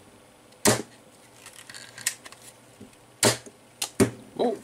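Nerf Doublestrike foam-dart blaster going off: two sharp plastic snaps, one about a second in and one past three seconds, with lighter clicks near the end.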